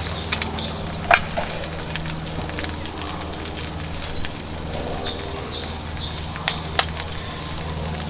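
Steady sizzling and crackling of a camp cooking fire, with a few sharp pops. A bird repeats a short high chirp twice in a run.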